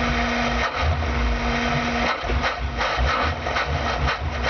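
Van engine warming up after being flooded, heard from inside the cab under the open engine cover. It runs with a steady hum, then about two seconds in turns to an uneven, rhythmic chugging of a few beats a second.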